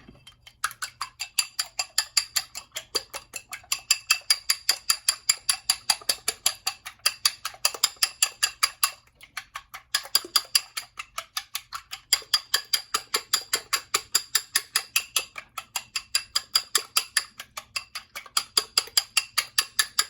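Eggs being beaten in a bowl: a utensil knocks rapidly against the bowl's side, about four clinks a second, with a couple of short pauses.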